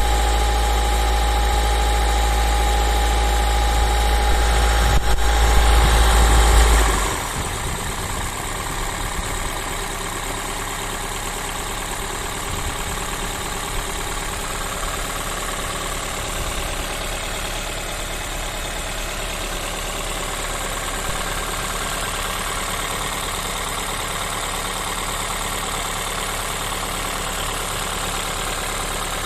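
Honda Fit 4 e:HEV's 1.5-litre four-cylinder engine running, louder with a steady whine for the first seven seconds or so, then dropping quickly to a quieter, steady idle.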